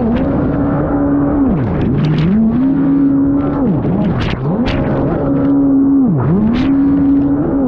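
Racing personal watercraft (jet ski) engine running hard, its pitch dropping sharply and climbing back several times as the throttle is chopped and reapplied through buoy turns. Bursts of spray hiss over the engine.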